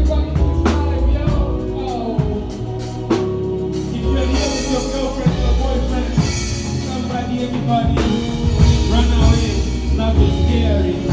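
Music with singing over a heavy bass line and drums.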